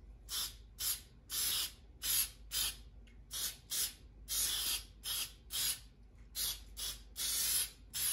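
Aerosol can of Bulls Eye shellac sprayed in a quick series of short hissing spurts, about two a second, a few held a little longer, as a coat is misted onto laser-cut wood pieces.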